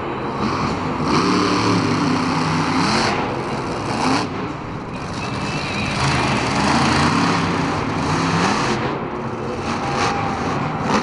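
Hurricane Force monster truck's supercharged V8 revving up and down several times as it drives the freestyle course and launches off a dirt ramp near the end, over steady arena crowd noise.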